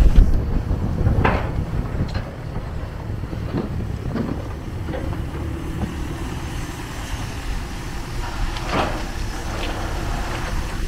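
Diesel engine of a Kobelco SK250 long-reach excavator running steadily while the boom lowers and the bucket digs, with a few short clanks and scrapes. The first half-second is louder.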